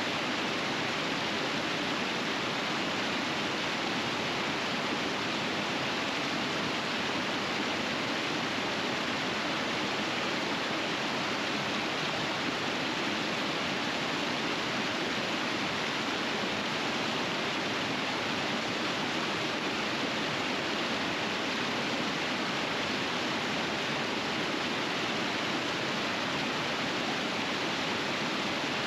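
River water rushing steadily over rapids, a constant even rush with no breaks or separate events.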